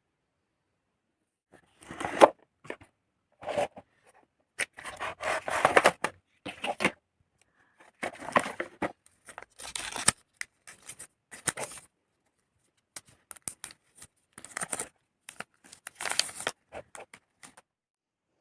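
Packaging of a smartphone box being torn and handled: a dozen or so short bursts of tearing and rustling, starting about a second and a half in and stopping shortly before the end.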